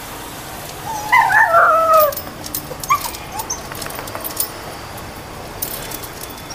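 A dog whining: a run of high, wavering cries that fall in pitch about a second in, then a couple of short yips. Light, sharp clicks and clinks scattered through the middle and near the end.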